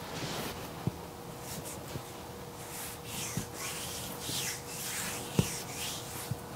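Hands rubbing and massaging a bare foot, a run of soft hissing strokes, with a few light knocks, the sharpest about five seconds in. A faint steady hum lies underneath.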